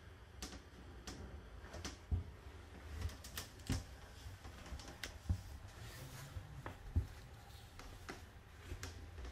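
Slow footsteps on a metal diamond-plate aircraft floor: soft thuds about every second and a half, with light irregular clicks and taps between them over a low steady rumble.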